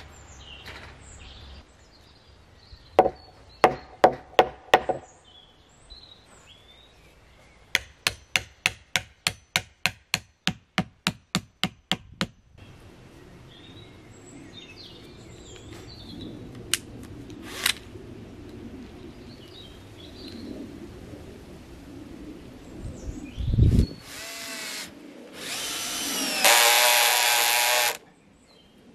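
Hammer blows on wood: a handful of strikes, then a quick run of about eighteen evenly spaced blows at about four a second, as a pine stake is driven for concrete formwork. Near the end a cordless drill driver whirs twice, driving a screw through the stake into the formwork board; the second run is the loudest sound.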